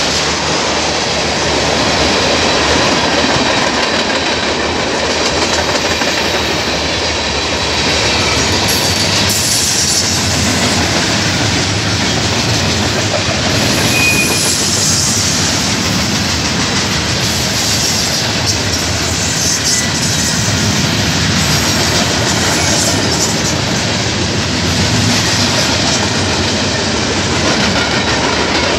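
CN freight train's cars (tank cars, coil cars, gondolas) rolling past close by: a steady loud rumble of steel wheels on rail with clickety-clack over the rail joints, and a brief high wheel squeal about halfway through.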